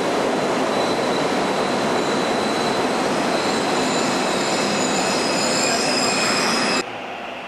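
Seoul metro Line 2 train running into the station platform: a loud, even rumble of wheels on rail, with several high squealing tones building from about three seconds in as it slows. The sound cuts off abruptly near the end.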